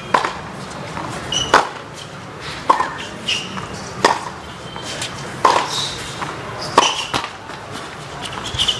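Tennis baseline rally on a hard court: a steady exchange of sharp racket-on-ball strikes and bounces, about one every second and a half, with short high squeaks of shoes on the court between them.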